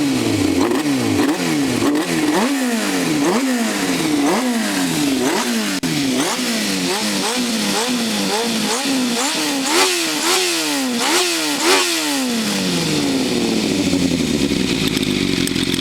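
Yamaha four-cylinder motorcycle engine with FCR carburettors and a titanium short silencer fitted with two inner baffles, revved in quick repeated throttle blips, about one and a half a second, each rising and falling back. Near the end it settles back to a steady idle.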